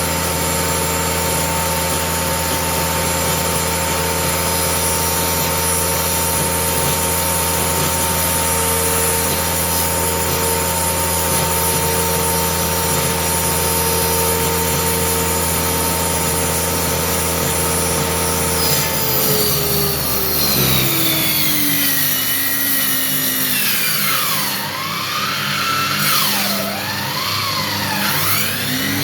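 Homemade circular saw running steadily as it cuts a speaker-box panel. About 19 seconds in it is switched off and the blade's whine slides down in pitch as it winds down, followed by wavering rising and falling whines near the end.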